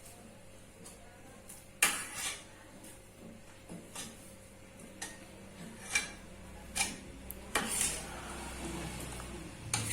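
Soup being ladled from a cooking pot into a serving bowl: scattered clinks and knocks of the ladle against the pot and bowl, a dozen or so at uneven intervals.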